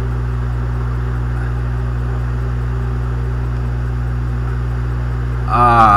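A steady low hum with no change, a background drone under the recording. A man's voice comes in near the end.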